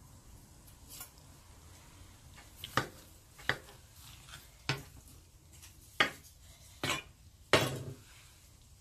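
Metal utensils clinking and knocking against dishware: about six sharp clinks roughly a second apart, the last two the loudest.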